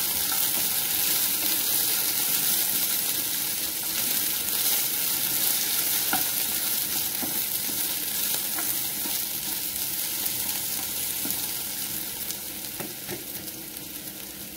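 Diced potatoes sizzling as they fry in a skillet, with a spoon stirring and scraping them around the pan. The sizzle gets quieter over the last couple of seconds.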